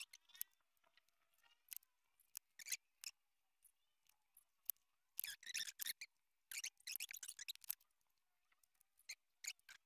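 Faint, intermittent scratching and light tapping of a pencil and a steel divider point marking lines on a block of old, dry wood, with the strokes bunched in two runs around the middle.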